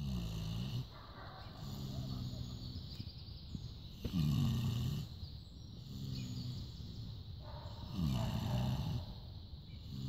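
Pot-bellied pig snoring in its sleep: about every four seconds a loud snore that drops in pitch, each followed by a softer breath held at a steadier pitch.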